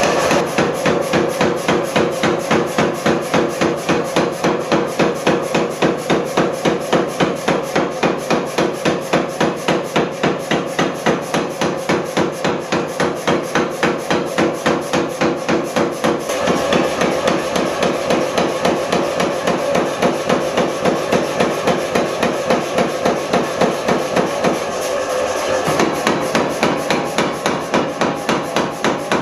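Power hammer striking a red-hot steel sword blade in a steady run of blows, about three a second, drawing out the blade.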